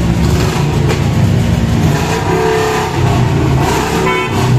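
Motorcycle engines running at low speed, with revving, and a short high whine about four seconds in.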